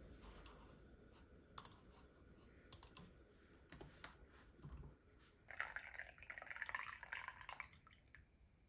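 A few light clicks from a computer mouse and laptop keys. About five and a half seconds in comes a steady pour of tea from a metal pot's spout into a metal cup, lasting about two and a half seconds. The pour is the loudest sound.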